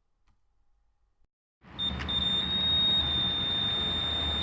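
After a short silence, a steady high-pitched electronic tone starts about a second and a half in and holds unbroken over a low hum and hiss.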